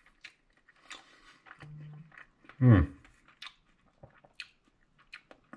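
A man's wordless vocal sound about two and a half seconds in: a brief low hum, then a louder voiced sound, among scattered soft clicks and small mouth and handling noises.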